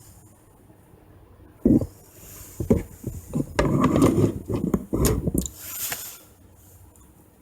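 Handling noise: a sharp thump about two seconds in, then a few seconds of irregular knocks and rubbing as objects are moved about.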